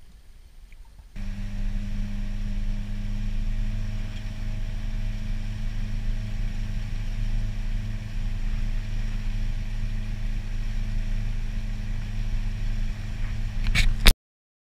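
Motorboat engine running steadily at cruising speed, a constant low drone with a brief crackle near the end before it cuts off suddenly.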